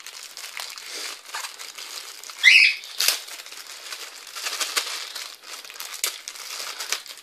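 Clear plastic packaging bag crinkling as hands handle it and work the USB cable out of it, with a brief louder squeak about two and a half seconds in.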